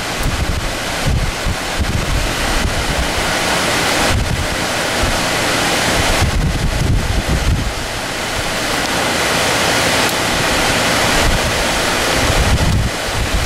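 Muddy floodwater rushing and churning as it pours over an earth bank into an excavated channel, a steady loud roar of water. Wind gusts buffet the microphone, adding an uneven low rumble.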